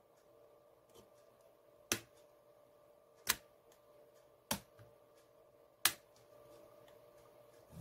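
Four sharp clicks, about a second and a half apart, as a thin metal pick pries at the plastic end cap and case of a Xiaomi 10000 mAh power bank.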